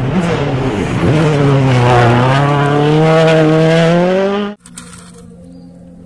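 Toyota Yaris WRC rally car's turbocharged four-cylinder engine at full throttle, its pitch climbing steadily over about three seconds. It cuts off abruptly about four and a half seconds in, leaving a faint steady low tone.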